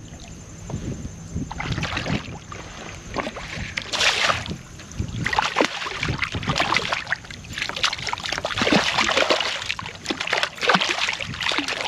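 A hooked redfish thrashing and splashing at the surface beside a kayak as it is played in on a bent rod, in irregular bursts that get heavier about four seconds in, with water sloshing against the hull.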